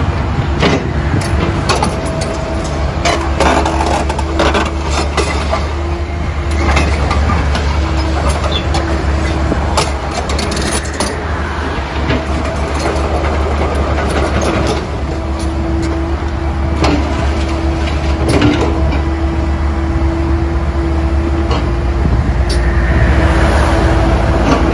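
A digging machine's engine running steadily under load, with a whine that comes and goes, and scattered knocks and clanks from the machine at work.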